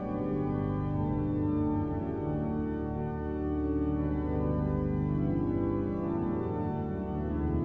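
Church pipe organ playing slow, full held chords over a sustained bass, the chords changing every second or so.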